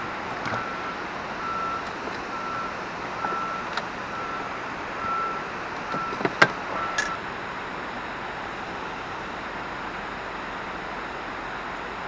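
Steady rushing of water pouring through the dam's spillway gates, with a repeating electronic beep, one short tone about once a second, that stops about seven seconds in. A couple of sharp knocks come near the end of the beeping.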